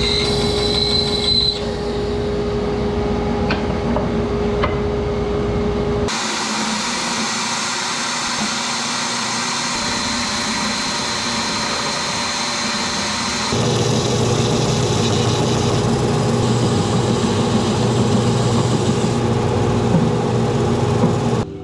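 Stationary power sanders running with wood pressed against them, heard in three cuts. For about six seconds there is a steady machine hum with a constant tone. Then comes an oscillating spindle sander. From about thirteen seconds in, a belt sander runs with a deeper steady hum.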